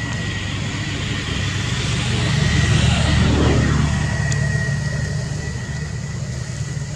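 A motor vehicle passing by, growing louder to a peak about three seconds in and then fading. A steady high-pitched whine sounds throughout.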